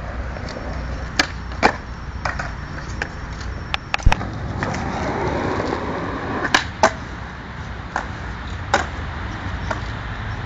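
Skateboard wheels rolling on smooth concrete, with several sharp clacks of the board hitting the ground, the loudest about four seconds in.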